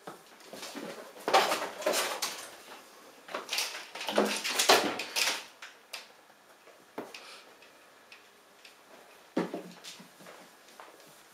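Household clattering and knocking in two spells, about a second and three and a half seconds in, each lasting a couple of seconds, with one sharp knock about nine and a half seconds in.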